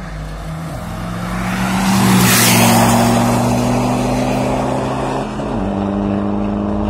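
Car engines running with a steady drone while a car drives past close by, its tyre and wind noise swelling to the loudest point about two and a half seconds in and fading away. The engine note shifts to a new pitch about five and a half seconds in.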